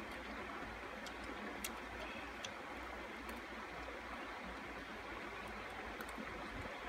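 Low, steady rush of a rocky stream flowing, with a few faint clicks now and then.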